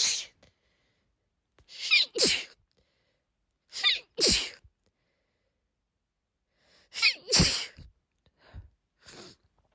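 A woman sneezing over and over in a sneezing fit: three sharp sneezes, each after a quick in-breath, with the tail of another right at the start and two softer sounds near the end.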